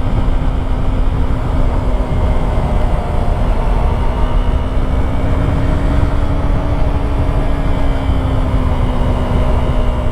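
Yamaha YZF-R3's parallel-twin engine running at steady cruising revs, its pitch rising slightly midway and easing back. Heavy wind rush over the helmet microphone underneath.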